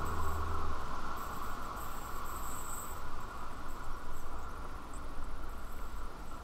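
Outdoor ambience: a steady hiss with faint, very high-pitched chirps coming and going. A music cue ends within the first second.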